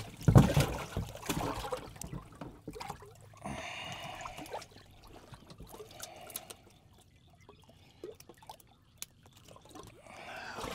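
Water splashing and trickling, with scattered knocks and clicks, loudest in the first couple of seconds.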